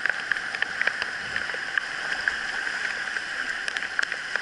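Whitewater river rapids rushing steadily around a kayak, with short sharp splashes scattered irregularly throughout.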